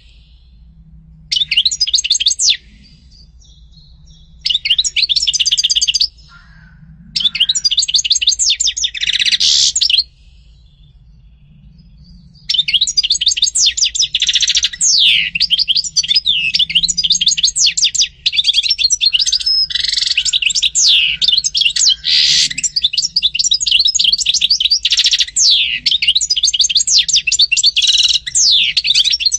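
European goldfinch singing: three short phrases of rapid, high twittering in the first ten seconds, then an unbroken run of twittering song from about twelve seconds in.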